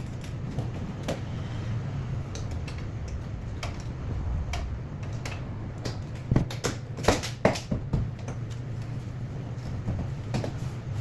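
Scattered small clicks and knocks from parts and tools being handled, with a cluster of louder knocks about six to eight seconds in, over a steady low hum.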